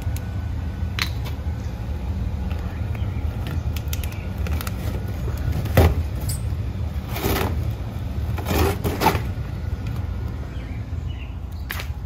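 A clogged air filter being handled at an air handler's filter slot: scraping, rustling and a few knocks, the loudest about six seconds in, over a steady low hum.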